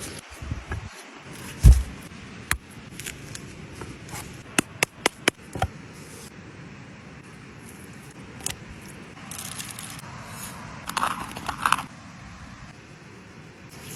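Handling sounds: a dull thump, then a quick run of about five sharp clicks, then a few seconds of scraping and rustling, like utensils and food being worked by hand.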